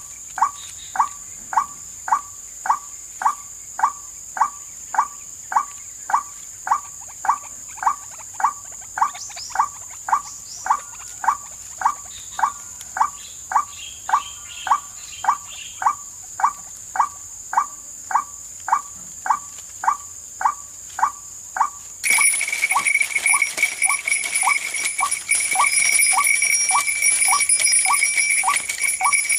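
White-breasted waterhen 'wak' calls from a processed lure recording, repeating evenly at nearly two short notes a second. About three-quarters of the way through, a loud, steady, high-pitched buzzing drone starts abruptly under the calls.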